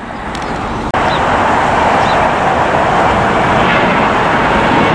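Steady rushing roar of a Boeing 737 airliner's jet engines as it climbs out after takeoff, broken by a sudden brief drop in sound about a second in.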